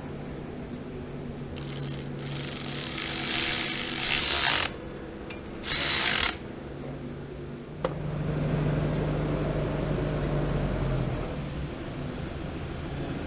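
Cordless power ratchet running nuts down onto bolts in two bursts, the first about two and a half seconds long and the second short. From about eight seconds in, an engine hums steadily at a low pitch.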